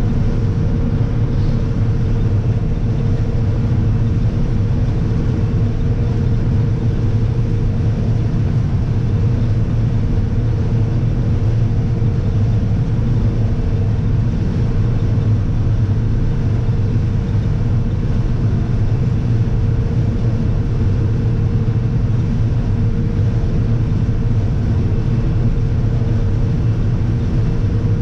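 Combine harvester running steadily while shelling corn, a constant low engine and machinery hum with a steady higher whine on top, as heard from inside the cab.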